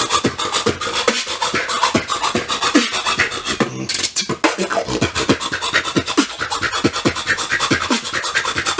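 Solo beatbox routine with a fast, steady rhythm of sharp mouth clicks and snares, with many short falling-pitch low sounds: the lip roll Cyclone, an inward lip roll bass sound, among them.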